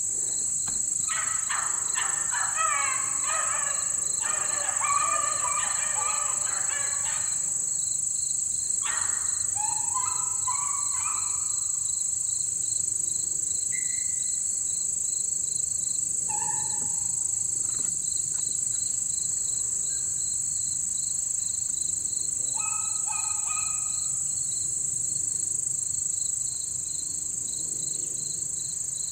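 Beagle hounds baying on a rabbit trail: several voices overlap in a burst for about six seconds starting a second in, with a shorter burst a few seconds later and scattered single bays after that. Under them runs a steady high-pitched drone of insects with evenly repeating cricket chirps.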